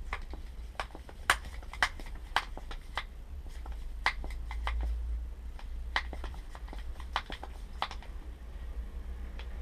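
Tools and small parts clicking and tapping irregularly, about a dozen sharp light knocks, during hands-on work on a bicycle rear shock, over a steady low hum.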